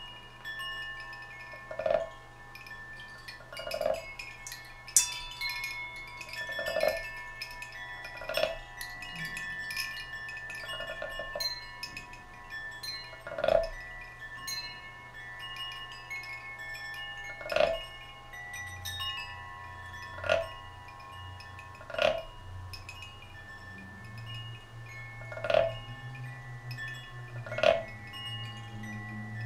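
Hanging metal chimes in a solo percussion performance, several tones ringing and overlapping. A short struck note sounds roughly every two seconds, and a low hum grows in under them in the second half.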